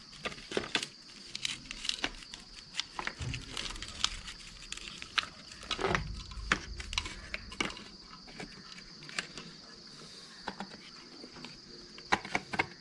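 Plastic motorcycle headlight housing parts clicking and knocking against each other as they are handled and test-fitted, over steady cricket chirring.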